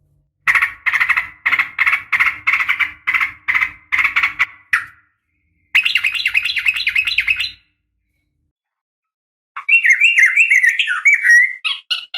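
Female yellow-vented bulbul calling, a lure call to rouse males: a run of about a dozen quick chattering notes, a short fast trill about six seconds in, then a warbling phrase of rising and falling notes near the end.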